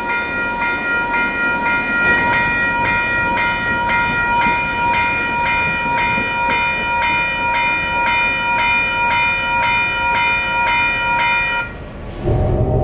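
Railroad crossing warning bell ringing in quick, even dings, about two and a half a second, over a low rumble. It stops suddenly near the end, and a vehicle engine's low running with a rising whine takes over.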